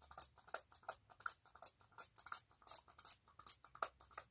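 Hand spray bottle pumped over and over in quick short squirts, about three a second, each a brief hiss. The sprayer is playing up and spitting rather than misting evenly.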